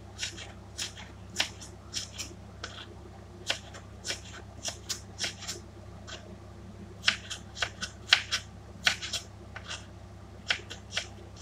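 A kitchen knife slicing ginger, the blade clicking sharply on the cutting surface at an irregular pace, some cuts in quick runs.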